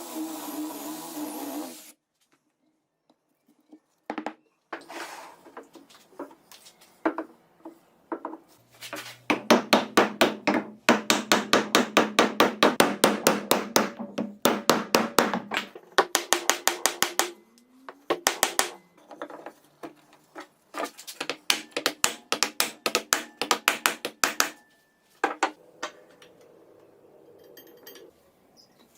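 Rapid, repeated sharp knocks of hand-tool work, like hammer blows, several a second. They come in bursts with short pauses and are loudest through the middle.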